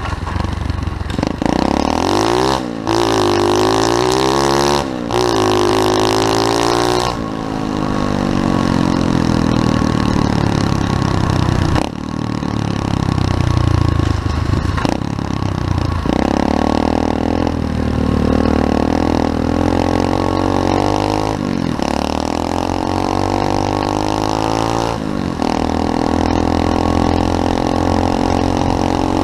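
SSR 125cc pit bike's single-cylinder four-stroke engine revving hard under acceleration. The pitch climbs, drops sharply and climbs again at each gear change, then holds high with a few brief throttle lifts.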